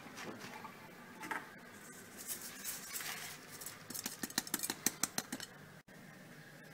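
Hands tossing chopped napa cabbage in a plastic bowl, the leaves rustling, then salt poured from a container over the leaves in a quick crackling patter while the cabbage is being salted. The patter cuts off suddenly near the end.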